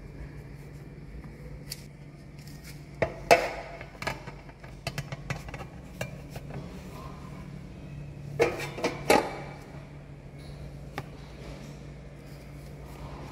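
A metal loaf pan and wire cooling rack clatter as a baked loaf is tipped out of the pan onto the rack: scattered clinks and knocks, loudest about three seconds in and again around eight to nine seconds in. A steady low hum runs underneath.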